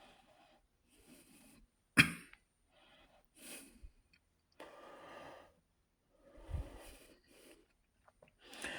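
Quiet room broken by a sharp click about two seconds in and several short breaths or sniffs from a person close to the microphone; no fan motor is heard running.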